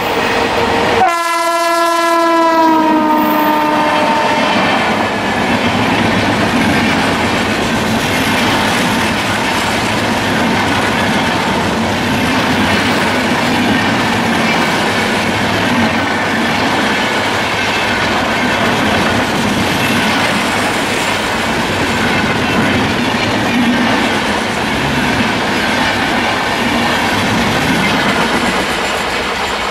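An Indian Railways electric locomotive's horn sounds one long blast about a second in, dropping slightly in pitch as it ends. Then comes the steady rumble and wheel clatter of an express's LHB coaches passing at speed close by.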